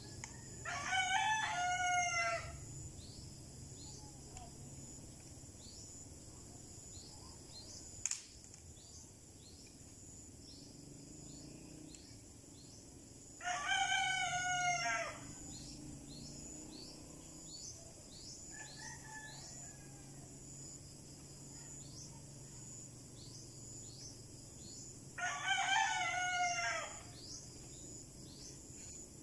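A rooster crowing three times, each crow about two seconds long and roughly twelve seconds apart. Between crows, short high chirps repeat steadily in the background.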